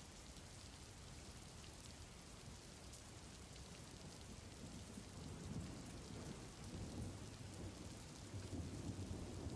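Steady rain falling, with a low rumble of thunder building about halfway through.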